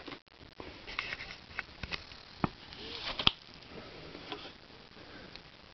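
Handling sounds of a small card box being opened: scattered light clicks and taps as the lid is lifted, with a few sharper ticks around the middle.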